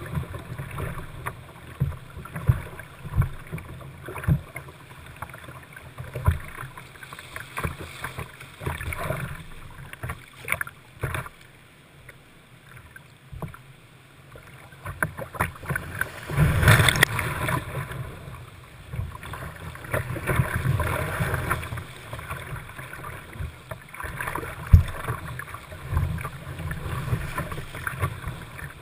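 Whitewater rapids rushing past a river kayak, with paddle strokes splashing and water slapping the hull close to a deck-mounted camera. The water eases briefly a little before the middle, then a loud surge of splashing comes a little past halfway.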